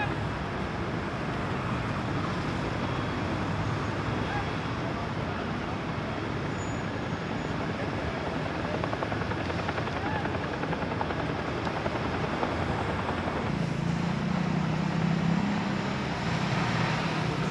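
Steady outdoor din of vehicle engines and traffic around a large fire, a dense rumble and hiss. A steadier low engine hum joins about three-quarters of the way through.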